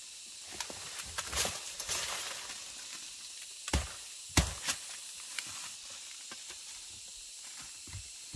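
A steady hiss with scattered crackles and clicks, and two sharp knocks about four seconds in.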